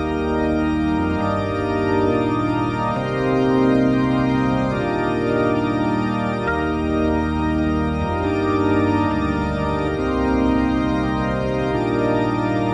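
Organ music: slow, held organ chords with a moving bass line, the chords changing every second or two.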